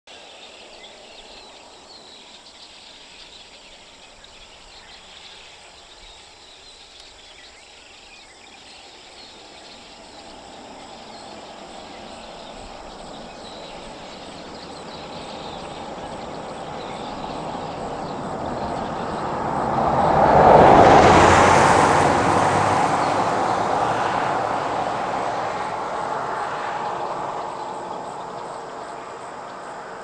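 A truck driving past, growing louder for about ten seconds, passing closest about two-thirds of the way through, then fading away.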